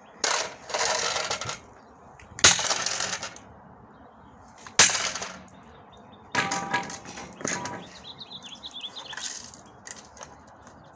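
Plastic cordless phone unit being struck hard four times, each blow followed by a rattling clatter of plastic; lighter knocks and rattles follow near the end.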